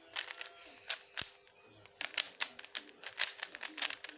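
Plastic 3x3 Rubik's-type cube being turned rapidly by hand, its layers clacking in quick runs of clicks with short pauses between, as last-layer moves are worked through.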